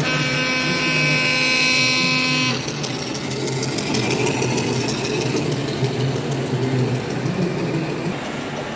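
A steady horn-like tone held for about two and a half seconds, then cutting off, over a low engine-like drone and the general noise of a busy hall.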